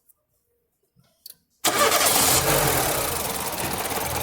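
Nissan Platina engine being started: near silence, a faint click, then about a second and a half in it fires suddenly and settles into a steady idle. One cylinder's ignition coil is fed to a spark tester rather than its plug, so that cylinder is not firing.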